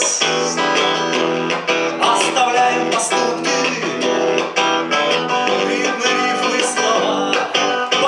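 A guitar strummed and played in a steady rhythm, an instrumental passage of a song without singing.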